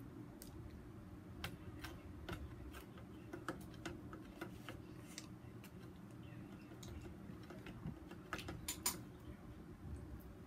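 Close-up eating sounds of baked chicken being chewed: scattered sharp clicks of chewing and mouth noises over a steady low hum, with a loud cluster of them near the end.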